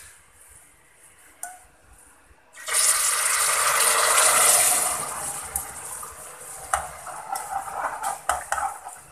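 Jaggery syrup poured through a metal strainer into a pot of hot cardamom-tempered oil. About two and a half seconds in it hits the oil with a sudden loud hiss, which eases after a couple of seconds into uneven bubbling and crackling.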